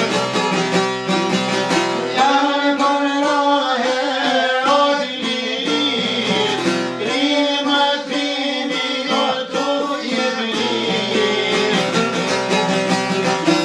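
Kosovo-Albanian folk song: long-necked lutes (çifteli and a larger sharki) plucked in a steady rhythm, with a man's singing voice entering about two seconds in and stopping near ten and a half seconds, while the lutes play on.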